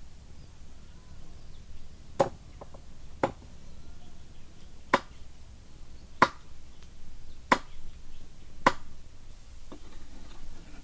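A cleaver chopping eel into pieces on a round wooden stump chopping block: six sharp chops, a second or so apart.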